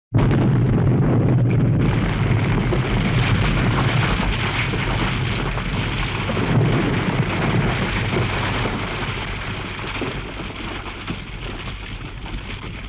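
Explosion sound effect: it starts abruptly at full loudness out of silence and continues as a dense crackling rumble that slowly fades over about ten seconds.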